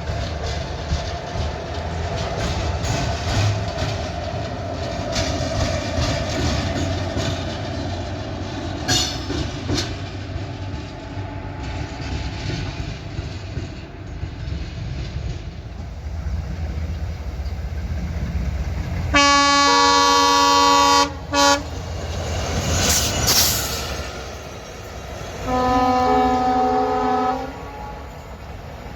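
Locomotive running past with low rumble and wheel clatter, then a WDG-3A diesel locomotive sounding its multi-note horn: a blast of about two seconds roughly two-thirds of the way through, a short toot right after, and another blast of about two seconds near the end.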